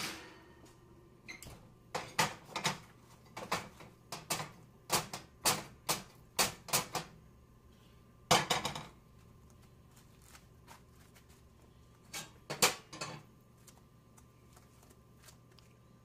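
Metal knocks and clatter of a frying pan and a piece of steel angle iron being handled on a gas stove's cast-iron grates. Quick, uneven knocks come in the first half, with a louder clatter about eight seconds in and another short cluster near thirteen seconds.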